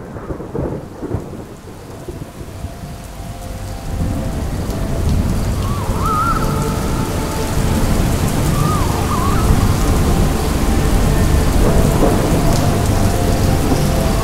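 Thunderstorm: deep rolling thunder over steady rain, the rumble swelling about four seconds in and staying heavy. A short warbling call sounds three times above it.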